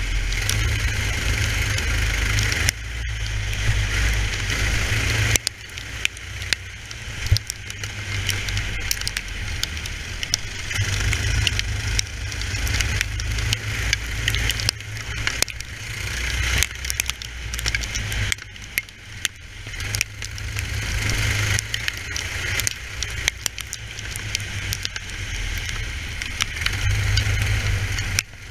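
Racing kart's engine running hard at speed, heard from a camera mounted on the kart, under a heavy low rumble and scattered clicks and crackles. The sound dips briefly several times, around 3 and 5.5 seconds in, again near 18 seconds and at the very end, as the kart eases off for corners.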